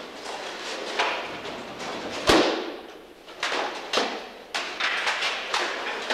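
Practice sticks striking wooden shields and armour in stick-fighting sparring: a run of sharp irregular knocks, about seven, with the loudest a deep thud a little over two seconds in.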